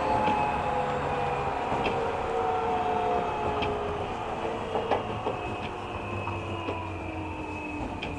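JR 205 series electric train heard from inside the passenger car: the whine of its traction motors and gears slides slowly down in pitch as the train slows, over running rumble. Short rail-joint clicks come about every second.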